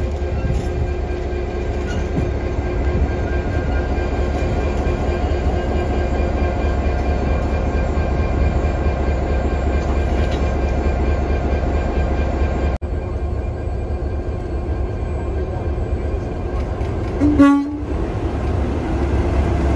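Mainline diesel locomotive engines running at idle, a steady low drone with held engine tones. The sound changes abruptly about two-thirds of the way through, and near the end a short diesel horn toot is the loudest sound.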